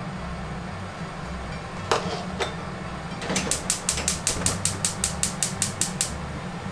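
Gas hob burner's spark igniter clicking rapidly, about six clicks a second for nearly three seconds, then stopping as the burner lights. Two single light knocks come a little before it.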